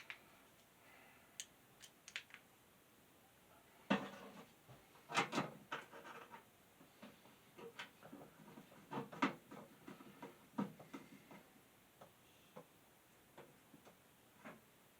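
Scattered clicks, taps and knocks of a box fan's parts being handled and worked on by hand, loudest in two clusters about four and nine seconds in.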